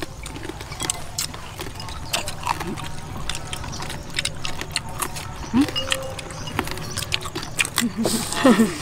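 People eating fried pork and papaya salad: chewing with many small sharp clicks and crackles scattered through, and a few brief murmurs of a voice.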